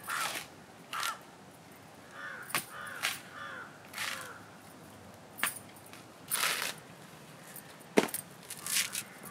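Crows cawing again and again, with the scrape and knock of tender coconut husk being worked on a wooden husking stake; a sharp knock near the end is the loudest sound.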